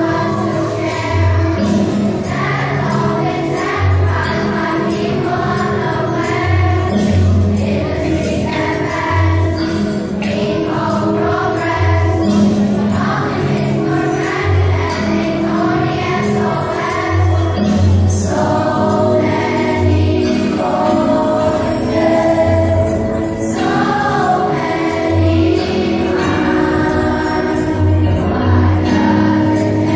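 A group of primary-school children singing together as a choir, over an instrumental accompaniment with a repeating bass line.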